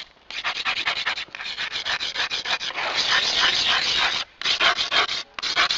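Scratching letters onto skateboard grip tape: a gritty rubbing scrape in quick back-and-forth strokes, several a second, with short pauses between letters.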